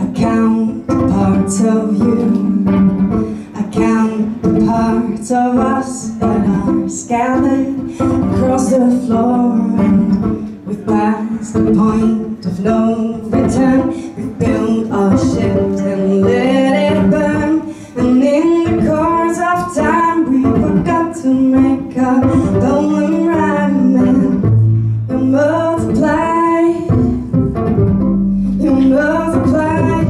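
A woman singing over a violin plucked pizzicato, with steady held low notes underneath.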